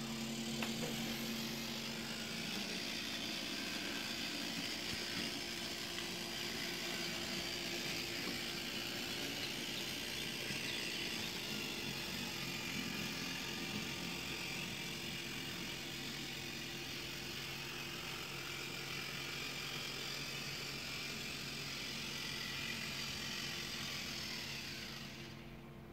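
Model SKL track-maintenance vehicle pulling a flat wagon along the layout track: its small electric motor whirring and wheels rolling on the rails, dying away near the end as it comes to a stop.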